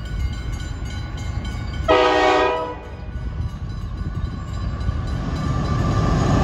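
Mechanical McKenzie-Holland "teardrop" level-crossing bell ringing with rapid, even strokes. About two seconds in, a freight train's horn sounds once, briefly, and the train's low engine and wheel noise grows louder as it approaches.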